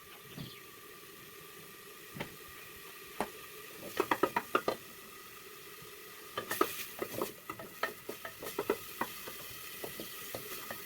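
Onion and carne seca sautéing in oil in a pot with a steady sizzle, while a wooden spoon stirs and knocks against the pot in quick runs of taps, about four seconds in and again from about six and a half seconds.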